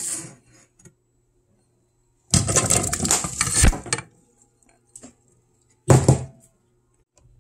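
Chunks of raw potato, carrot and celery tumbling from a bowl into a stainless steel cooking pot, a clattering run of knocks lasting under two seconds. A single short clunk follows a couple of seconds later.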